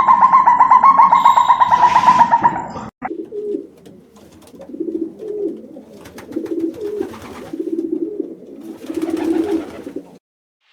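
Pigeons cooing: repeated low, soft coos in short runs. They follow a loud, long, wavering call that cuts off abruptly about three seconds in.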